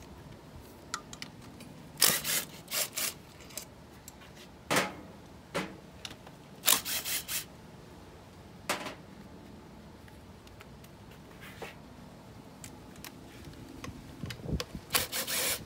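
Sharp metallic clicks and clinks of tools working the intake manifold bolts loose on a Suzuki DF115 outboard, coming in short clusters a few seconds apart, with a denser rattle near the end.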